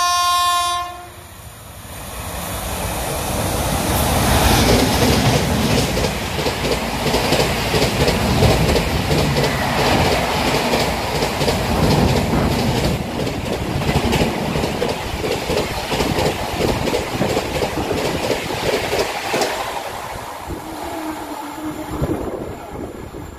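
An electric locomotive's horn ends about a second in. Then a WAP7-hauled LHB express passes through at speed: a rush that builds, then a steady rumble with rapid clatter of wheels over rail joints, fading away near the end.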